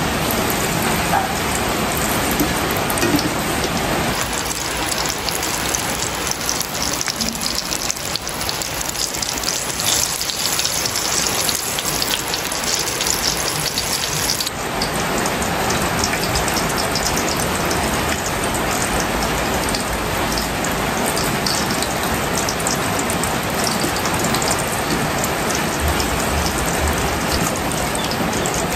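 Breadcrumb-coated mango pies deep-frying in hot oil in a wok: a steady, dense sizzle and crackle.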